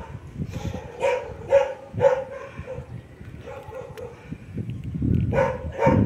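A dog barking in short, repeated barks: a cluster of three or four about a second in, then two more near the end.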